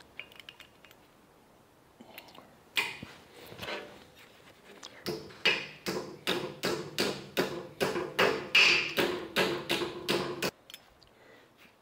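Hammer blows on a sheet-metal patch piece held against a steel anvil, bending a curve into it. A couple of single blows come first, then a steady run of about three ringing blows a second for five seconds, which stops about ten and a half seconds in.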